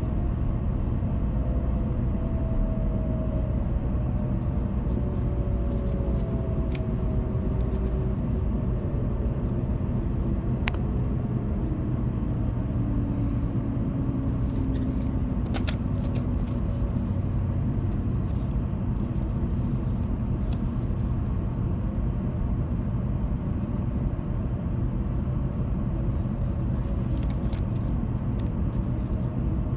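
Shinkansen train running at speed, heard from inside the passenger cabin: a steady low rumble with a faint whine sliding down in pitch over the first half, and a few light clicks.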